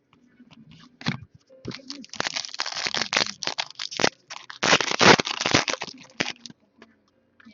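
Trading card pack wrapper being torn open and crumpled, in two stretches of dense crackling with scattered clicks and taps of cards being handled around them.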